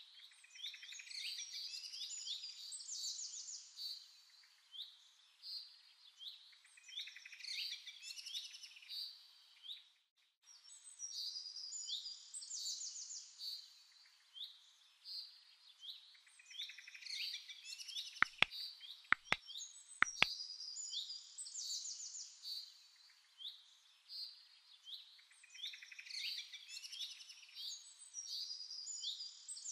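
Small birds chirping and trilling over and over in a dense chorus. About two-thirds of the way through come three sharp clicks, roughly a second apart.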